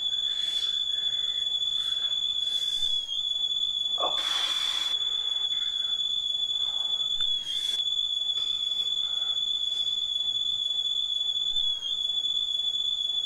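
A steady high-pitched whistling tone, held without a break, with a few short breathy hisses over it, the loudest about four seconds in.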